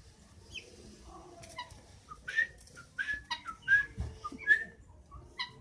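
Young helmeted guineafowl (keets) calling: a scatter of short, high peeps and brief whistled notes, several gliding down in pitch.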